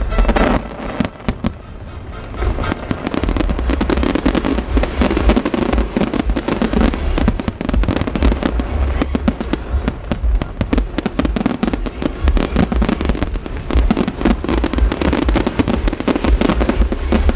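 Large fireworks display: a dense, continuous barrage of bangs and crackling over a low rumble, thinning briefly about a second in before building back up.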